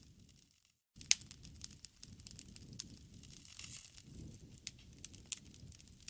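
Wood fire crackling: scattered sharp pops over a soft low rumble. The sound cuts out completely for a moment about half a second in.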